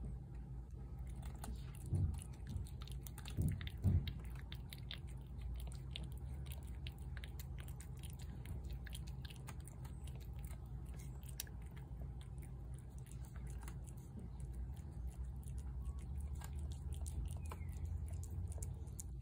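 A cat chewing wet cat food chunks off a plate close to the microphone: a rapid, uneven run of small wet clicks and smacks. Three louder low thumps come within the first four seconds.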